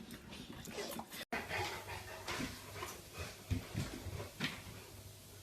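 A pet dog making short, quiet whimpering and panting sounds, with a few soft knocks.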